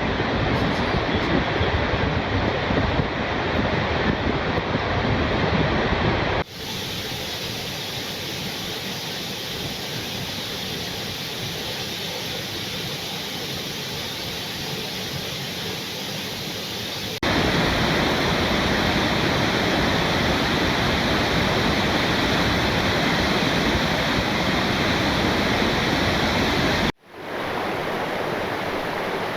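Steady rushing of falling water from waterfalls, a dense even roar. It changes abruptly three times, about six, seventeen and twenty-seven seconds in, switching between louder and softer, fuller and thinner falls.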